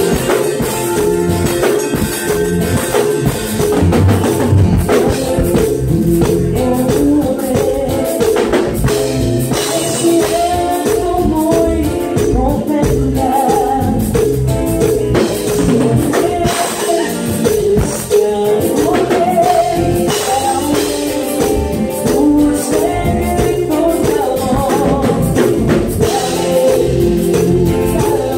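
Live Tejano band playing loud, amplified: a woman singing lead over drum kit, timbales and electric guitar.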